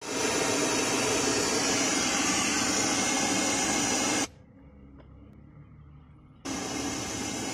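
Steady hiss of radio static from the Toyota ZRE171 head unit through the car's speakers: the unit's audio is working while its screen stays dark. The hiss cuts off suddenly at a button press about four seconds in and comes back just as suddenly about two seconds later.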